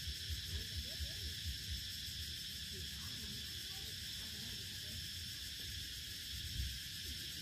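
Steady, high-pitched chorus of insects droning without a break. Soft low thumps, about four a second, fall in the first two seconds, and one louder thump comes near the end.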